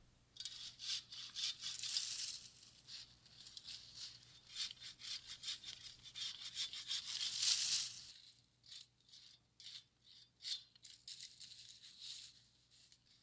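Hand pole saw cutting through a low tree limb in quick back-and-forth rasping strokes, about two or three a second, with dry leaves on the limb rattling. A louder rush of leaf rustling comes about halfway through, then sparser, fainter strokes.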